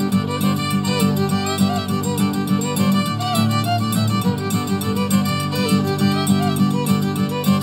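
Instrumental music led by a fiddle playing a melody of short, sliding notes over a steady low accompaniment.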